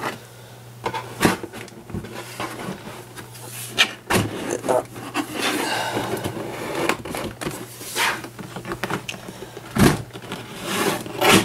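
Cardboard lid of a model-kit box being worked off one-handed, cardboard scraping and sliding against the box with scattered knocks and taps, the sharpest knock about ten seconds in.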